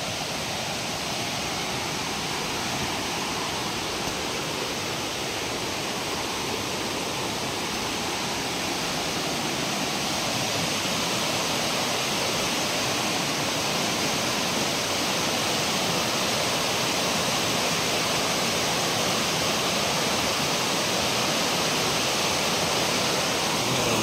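Water of a rocky forest stream cascading over boulders: a steady rush and splash that grows slightly louder over the first half.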